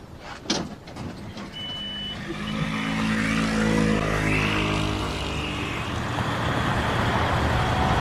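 A Toyota Coaster minibus's engine running as the bus pulls away, growing louder over the first few seconds and then holding steady. There is a knock about half a second in and a short high beep a little later.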